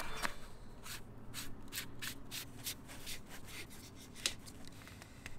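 Hard plastic parts of a battery-powered LED navigation light rubbing and clicking as they are twisted together in the hands: a string of short scraping clicks, a few a second.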